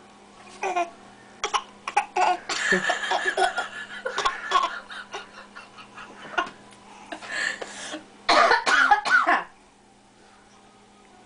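A baby giving short fake coughs, imitating an adult's cough, mixed with bouts of laughter.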